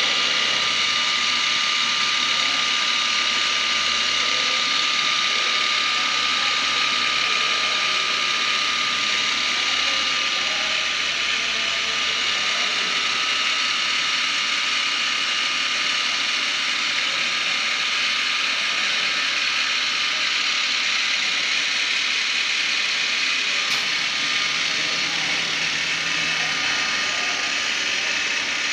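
CNC woodworking router with spindle and boring head running, giving a steady high whine over a hiss of machine noise. A clear high tone in the whine fades about halfway through.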